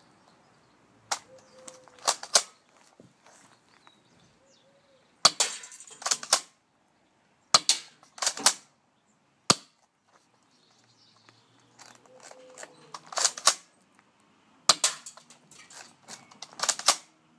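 Spring airsoft M3000 pump-action shotgun being pumped and fired several times: sharp plastic clacks that come in clusters of two to four, with pauses of a second or more between them.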